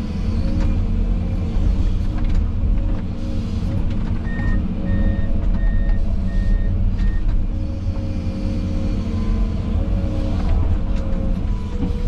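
Diesel engine of a heavy earthmoving machine running steadily under load. About four seconds in, a reversing alarm beeps five times, about a beep every 0.6 seconds.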